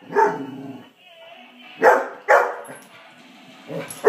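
Bernese mountain dog barking at a toy ghost: about four short, separate barks, two of them close together about two seconds in.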